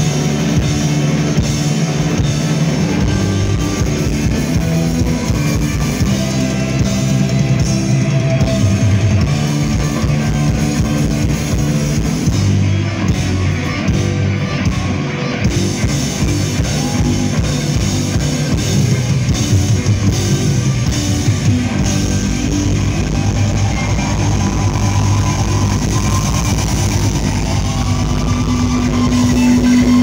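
Heavy metal band playing live, electric guitars and drum kit, heard from within the audience as an ambient room recording. Near the end a long held note sets in.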